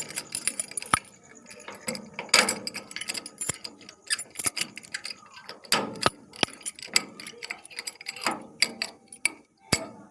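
Keys jangling and a key worked hurriedly in a lock, the lock mechanism giving a rapid, irregular run of metallic clicks and rattles.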